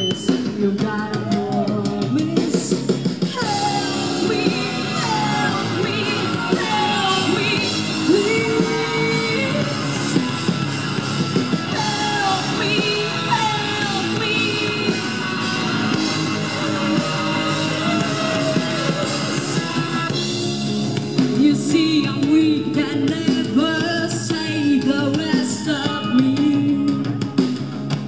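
Rock band playing live: a singer over electric guitars and a drum kit.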